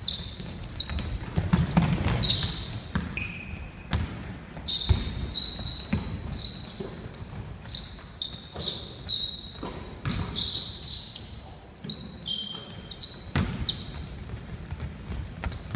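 Basketball game on a wooden gym floor: the ball bouncing in repeated sharp knocks, mixed with many short high-pitched squeaks of sneakers as players cut and stop.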